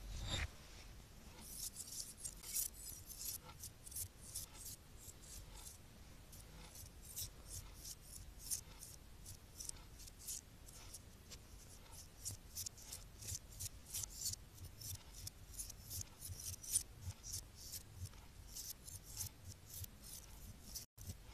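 Small crumpled aluminium foil pieces being handled and slid about on a flat surface by hand: a quiet, irregular run of short crinkly crackles and ticks.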